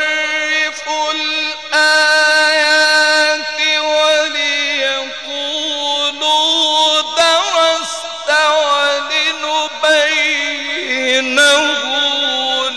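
A man reciting the Quran in the melodic mujawwad style: long held, ornamented phrases whose pitch wavers and slides, broken by short pauses.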